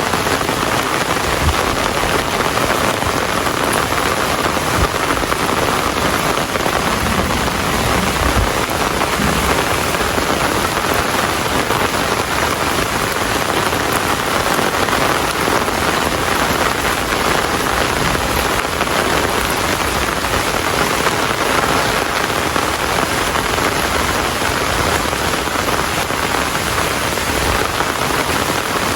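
Steady, heavy rain falling and pattering on surfaces, an even continuous hiss.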